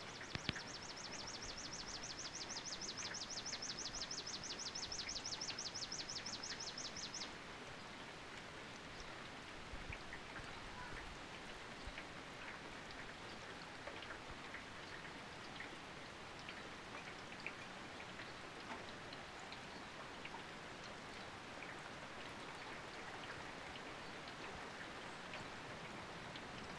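Light rain as a thunderstorm approaches: a faint, even hiss with scattered drop ticks. For about the first seven seconds a high, rapid pulsing trill sounds over it.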